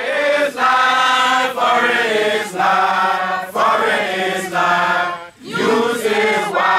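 Voices chanting or singing together in held notes. The phrases are about a second long, with brief breaks between them, over a steady low note.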